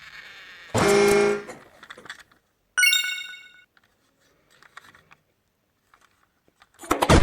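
Short sound effects in sequence: a pitched honk lasting under a second, starting about a second in; a bright ringing chime that fades quickly, about three seconds in; and a loud noisy burst near the end.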